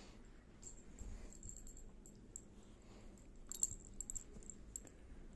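Dog's collar tags jingling in short clusters as the dog moves, loudest about three and a half seconds in, over faint rustling.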